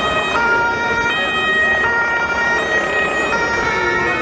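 Police two-tone siren, switching between a high note and a low note about every three-quarters of a second, with a second steady tone held above it. Shouting voices can be heard underneath.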